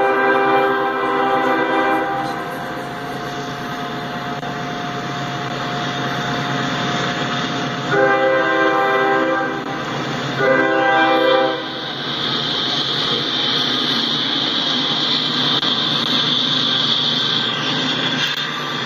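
Freight train passing at a grade crossing. The lead diesel locomotive's multi-chime air horn sounds a long blast that ends about two seconds in, then two shorter blasts about eight and ten seconds in, over the steady rumble and rolling of the EMD units and freight cars. From about twelve seconds a high steady squeal from the passing cars' wheels rises above the rumble.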